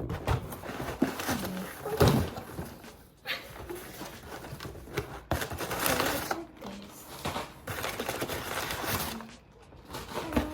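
Packing paper rustling and crinkling in stretches of a second or two as a parcel is unpacked by hand, with a few light knocks of items being handled.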